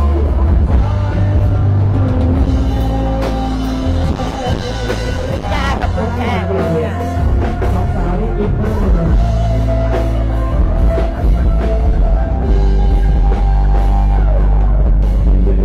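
Loud rock music with drums, a heavy bass line and singing.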